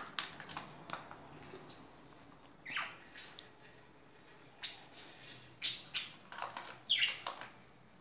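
Budgerigars giving short, high chirps at irregular intervals, with a quick run of them in the second half.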